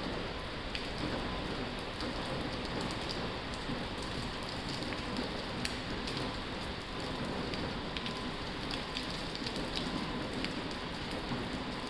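Heavy rain falling steadily on a tin roof: a dense hiss thick with sharp taps of individual drops.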